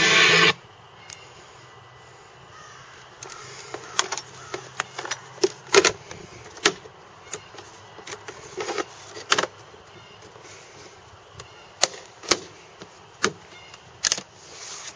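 Guitar music on the ATV's add-on marine speakers cuts off abruptly about half a second in. What follows is a faint steady background broken by a dozen or so sharp, irregular clicks and knocks.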